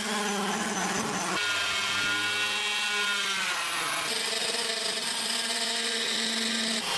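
A small handheld power tool's motor whining steadily in three stretches that change abruptly, its pitch sagging and recovering once in the middle, then cutting off suddenly near the end.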